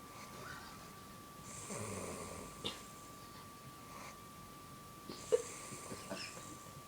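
Snoring in sleep: two long rasping snore breaths about three and a half seconds apart, with short sharp snorting clicks, the sharpest about five seconds in.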